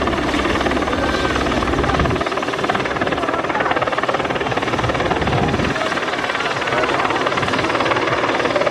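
Helibras H-50 Esquilo single-engine helicopter flying past, its turbine running steadily under the rapid, even beat of the main rotor blades. The deepest rumble drops off about two seconds in.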